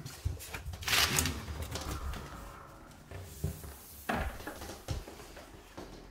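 An interior door being opened, with a loud swish about a second in, followed by a few light knocks.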